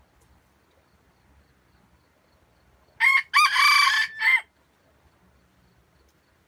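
A red junglefowl rooster crows once, about three seconds in: a short first note, a longer middle and a clipped final note, about a second and a half in all.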